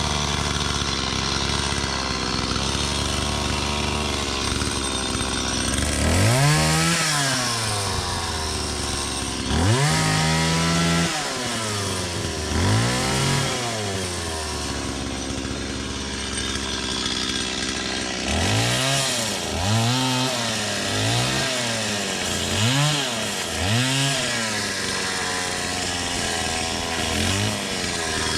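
Two-stroke chainsaw idling, then revved up and let back down three times. After another idle it gets a quick run of about six throttle blips, and one more near the end.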